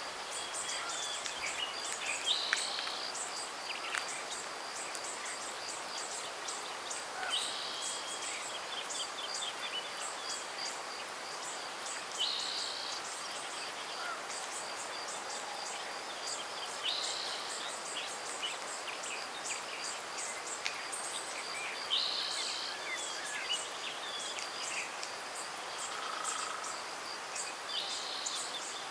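Outdoor spring ambience of birds and insects. One bird sings the same short phrase about every five seconds over a steady, high-pitched insect trill made of fast ticks, with a soft even hiss underneath.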